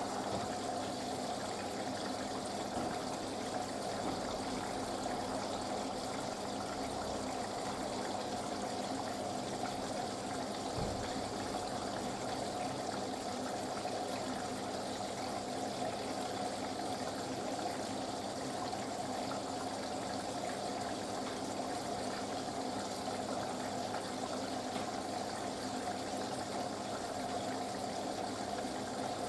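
Steady rush of water moving through a Panasonic front-loading washing machine during its wool cycle, an even hiss with no change in level.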